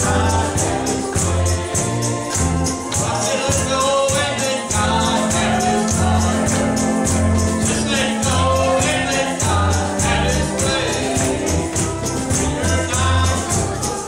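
Upbeat gospel music: singing over a band, with a pulsing bass line and fast, steady percussion keeping the beat.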